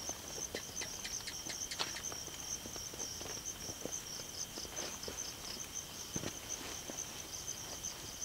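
Night insects chirping steadily: a fast, even pulsing trill high up with a second steady high tone beneath it. Scattered light clicks and knocks sound over it, thickest in the first couple of seconds.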